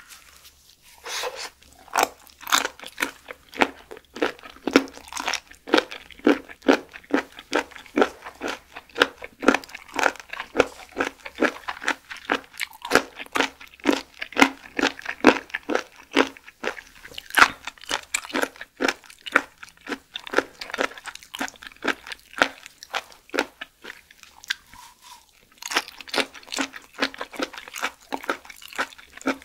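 Close-miked chewing of raw shellfish: firm, crunchy bites at about two to three a second, with a short break near the end.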